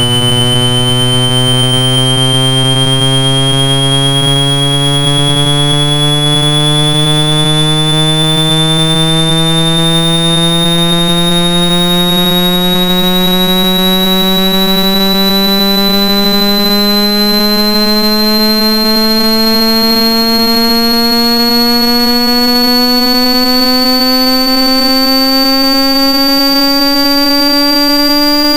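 Synthetic buzzy test tone, rich in overtones, sweeping slowly and steadily upward in pitch: a speaker-cleaning sweep meant to vibrate a phone speaker and shake out trapped water and dust.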